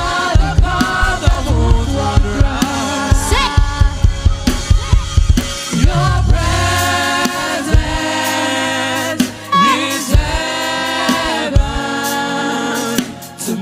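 Live gospel worship band: several singers holding long, wavering sung notes over a drum kit.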